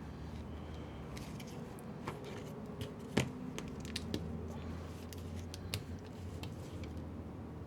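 Scattered small clicks and taps of objects being handled on a workbench, the sharpest about three seconds in, over a steady low hum.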